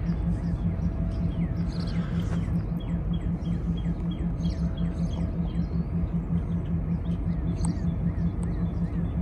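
Low, steady, pulsing rumble of a Geep diesel locomotive working slowly at a distance. Over it a small bird chirps repeatedly, about twice a second, from about three seconds in.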